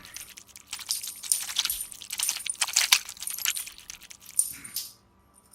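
Rapid light clicks, clinks and rattles of small hard objects clattering, stopping suddenly a little before the end.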